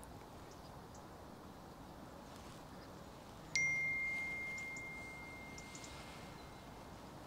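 A single clear, bell-like ding about three and a half seconds in, ringing on and slowly fading away over a few seconds.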